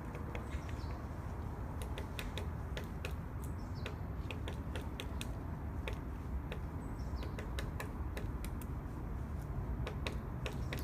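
Woodpecker pecking at wood: irregular sharp taps, a few a second, with no steady drumming roll. A faint high bird call falls in pitch three times, over a steady low rumble.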